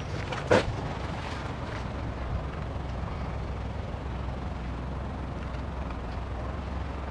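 A steady low rumble of background noise, with a single sharp knock about half a second in.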